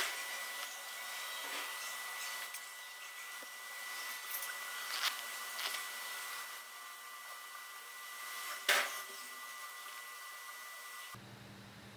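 Steady hiss of background noise with a thin high whistle running through it and a few faint clicks and rustles. Near the end the hiss drops away and a low hum takes over.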